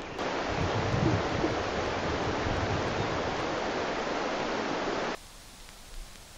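Rushing creek water: a steady hiss of flowing water over rocks that cuts off abruptly about five seconds in, leaving a much fainter hiss.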